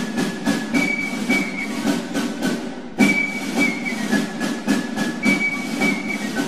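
Mooney M20K's engine and propeller running at low landing power, with wind rushing over the externally mounted microphone, as the plane flares and rolls onto the runway. A faint high tone pattern recurs about every two seconds.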